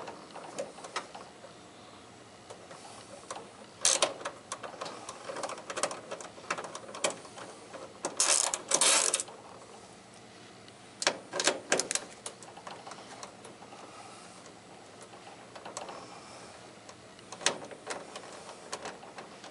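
Ratchet with an 8 mm socket clicking in several short spells as nuts are loosened, with metal clinks between the spells.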